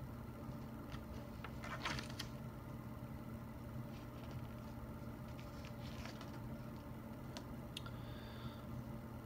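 Steady low hum of a quiet room with a scattered handful of soft clicks and taps, a cluster about one to two seconds in and a few more later on.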